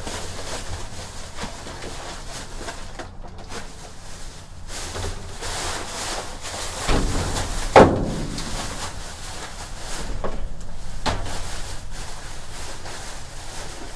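Plastic bags rustling and crinkling as items are stuffed into a plastic shopping bag, with knocks and clunks of trash shifting in a dumpster. One sharp knock, the loudest sound, comes about eight seconds in.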